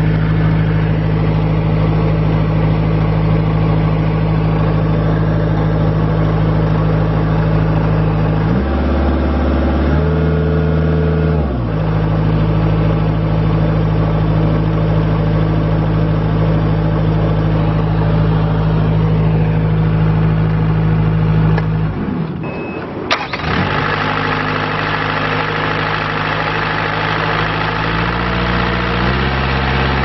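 Bobcat S175 skid steer's Kubota four-cylinder diesel engine running steadily. Its speed rises briefly about a third of the way in, and after a short break it idles and then revs up in steps near the end.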